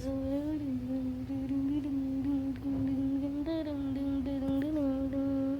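A voice humming one long, nearly level note with small wavers in pitch, cutting off abruptly at the end, with a few faint clicks underneath.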